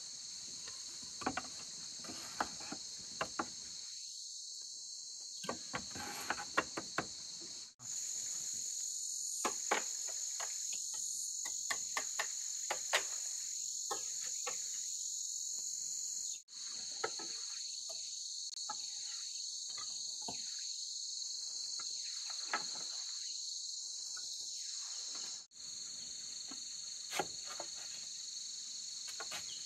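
Steady chorus of insects shrilling at a high pitch, with scattered light clicks and taps. The sound drops out abruptly three times.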